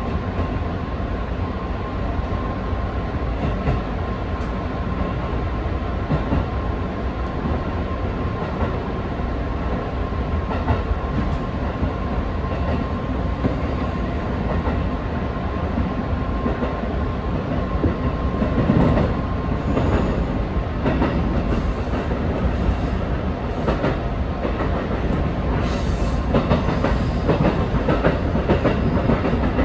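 Electric passenger train heard from its cab as it pulls out of a station and runs over the station throat, with a continuous running rumble. A steady whine lasts about the first twenty seconds. Then the wheels clatter repeatedly over rail joints and turnouts, most densely in the last ten seconds.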